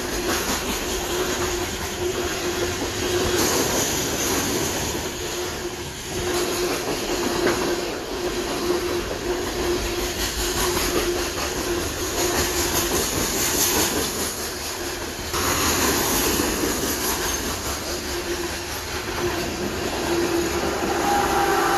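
Freight train rolling on the rails, a steady clatter with a wheel squeal that comes and goes throughout.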